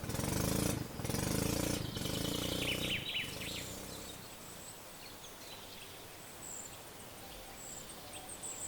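A motor engine running steadily for the first three seconds or so, then dropping away, leaving a quieter outdoor ambience with repeated high-pitched chirping calls.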